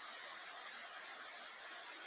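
Steady forest insect chorus, a high continuous drone, over an even background hiss.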